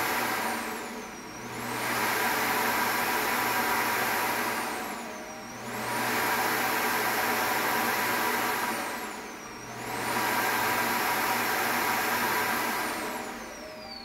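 Samsung Clean Station auto-empty dock running its suction motor to empty the BESPOKE Jet stick vacuum's dust bin. The suction dips and swells back three times, about every four seconds, with its high whine sagging and recovering each time, then the motor winds down with a falling whine near the end.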